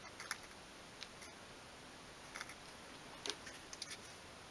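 A few faint, light clicks and taps as a small miniature wooden table is handled and turned over in the hands.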